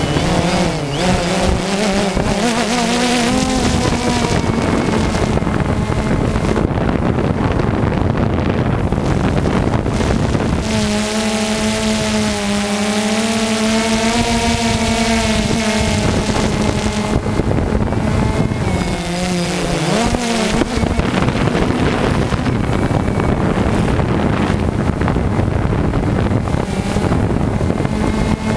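DJI Phantom 2 quadcopter's motors and propellers buzzing, heard through its onboard camera, over a steady rushing noise. The pitch of the buzz dips and climbs back a few times as the throttle changes.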